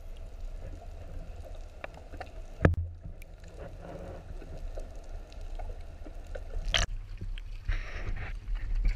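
Sea water heard through a camera held just below the surface: a steady, low, muffled rush of water, with one sharp knock a little under three seconds in and another near seven seconds.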